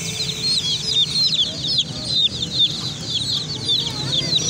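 A flock of baby chicks peeping continuously: many short, high-pitched calls, each falling in pitch, overlapping several times a second.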